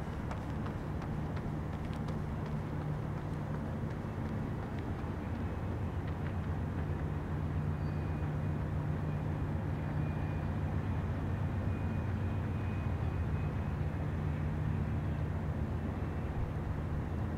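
Siemens ALC-42 Charger diesel-electric locomotive, with its Cummins QSK95 engine, hauling a passenger train and heard from a distance: a steady low engine drone over the rumble of the rolling train, growing a little louder midway. A faint thin high tone runs through the middle.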